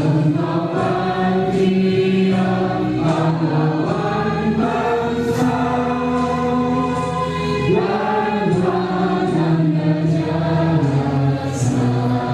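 Junior high school choir singing in harmony, long held notes moving to a new chord every second or two.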